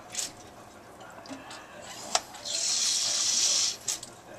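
Brine being pumped through a plastic tube into a whole pig's front leg: a sharp click about two seconds in, then a hissing, watery rush lasting about a second.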